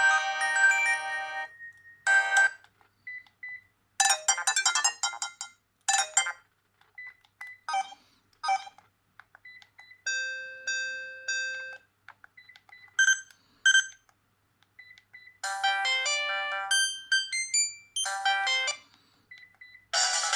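Electronic ringtones and alert tones from a Sharp GX25 Ferrari Edition mobile phone, played one after another. Each is a short chiming melody of a few notes, with gaps of silence and small single beeps between them. One holds a steady chord for about two seconds near the middle.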